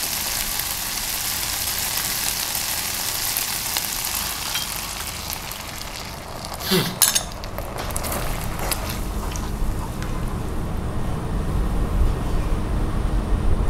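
Onion-and-capsicum sauce sizzling in a frying pan as a cornflour-and-water slurry is poured in. The sizzle dies away, a short loud clatter comes about halfway through, then the sauce bubbles low while a spatula stirs it.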